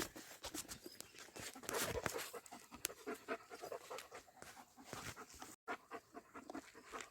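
A German Shepherd panting faintly close to the microphone, with irregular light rustling and scuffling.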